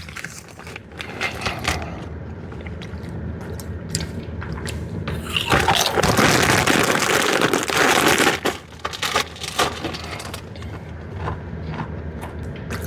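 Crunching and chewing of Doritos BBQ tortilla chips: a stream of small crackling snaps, with a louder, denser stretch of about three seconds past the middle.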